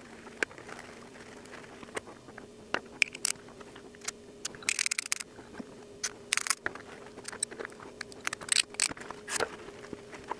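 Irregular sharp metallic clicks and short scrapes as a ratchet wrench and its small parts are handled during cleaning and lubrication, over a faint steady hum.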